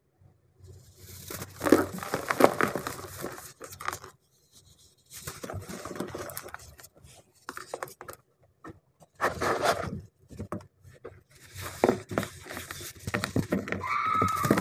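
Hands scraping, rubbing and crumbling soft, powder-dusted chalk-like blocks, a dry crunchy grating sound that comes in several runs with short pauses between them. Near the end a block is broken in two, with a short squeak.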